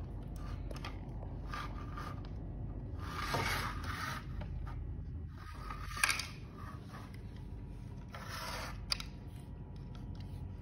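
Plastic Lego pieces and a plastic Lego storybook case being handled, rubbing, scraping and clicking against each other. There are bursts of rustling, and sharp clicks about six seconds in and again near nine seconds.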